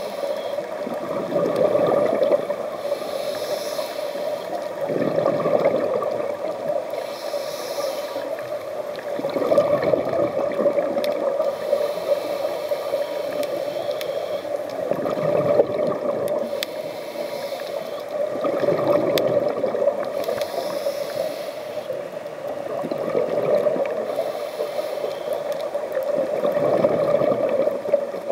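Scuba regulator breathing underwater: a hiss on each inhale, then a gurgling rush of exhaust bubbles on each exhale. The cycle repeats about every four seconds, seven breaths in all.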